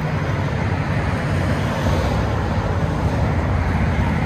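Straight-piped 3.5-litre V6 of a 2006 Infiniti M35 running with a steady low exhaust note as the car pulls slowly forward at low revs.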